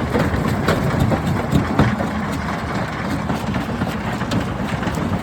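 Rock crusher running: a steady heavy engine rumble with irregular sharp knocks of rock being broken.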